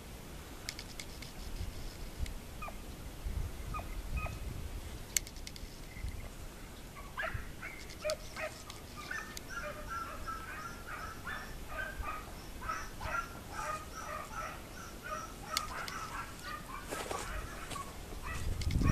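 A distant chorus of short, rapidly repeated animal calls, several a second, starting about seven seconds in and lasting about ten seconds. A few sharp clicks come earlier.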